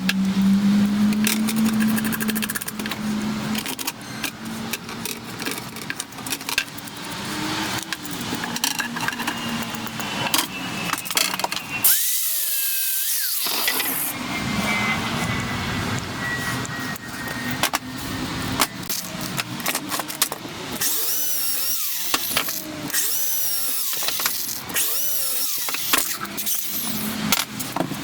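Power tool running in the workshop, heard in several short pieces that break off abruptly.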